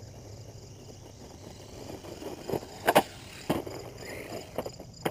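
Insects trilling in a steady, rapidly pulsed chirp, under a few sharp knocks and thumps between about two and a half and five seconds in, the loudest about three seconds in.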